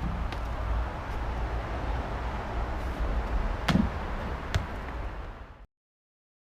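Outdoor ambience with a low rumble of wind on the microphone, a sharp thud about three and a half seconds in and a lighter tap a second later; the sound cuts off abruptly near the end.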